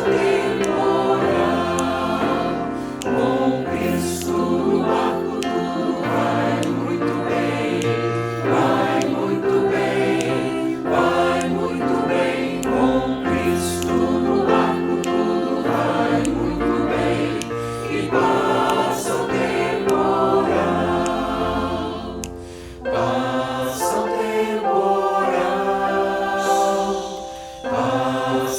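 A choir singing a Christian hymn in several-part harmony, with phrases breaking off briefly twice in the latter half.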